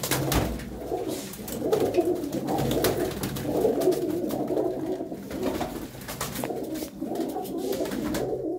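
Many domestic pigeons cooing at once in a loft, a dense overlapping murmur of coos, with scattered sharp clicks among them.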